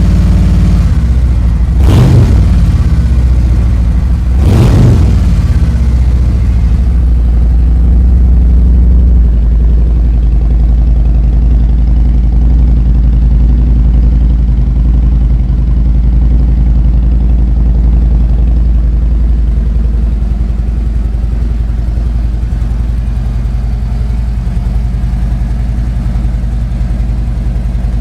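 Motorcycle engine running through freshly installed Vance & Hines 4.5 High Output slip-on mufflers, heard for the first time. It is blipped twice in the first few seconds, pitch rising and falling each time, then settles into a steady idle.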